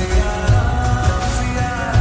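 Hindi film song playing with a full band: heavy low drum hits over sustained melodic instruments.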